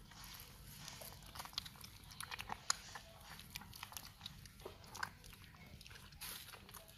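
Puppies suckling at their mother dog's teats: faint, irregular wet smacking and clicking, with a quick run of clicks around two to three seconds in.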